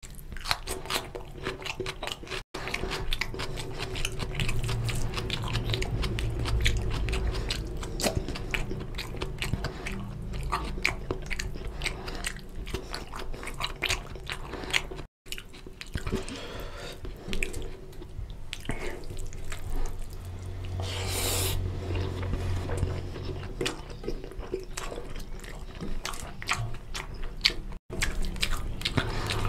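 Close-miked wet chewing and lip-smacking of a man eating mutton lung curry and rice by hand, a dense run of irregular clicks and crackles. Squishing of fingers mixing rice and gravy on a steel plate runs through it.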